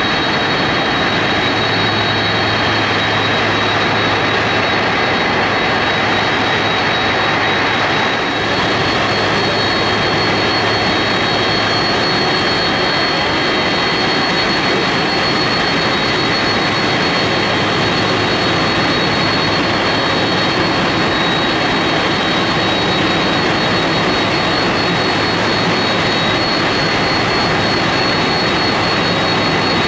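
Boeing 747-400's four General Electric CF6-80C2 turbofans running at taxi power: a loud, steady jet roar with a high, even whine.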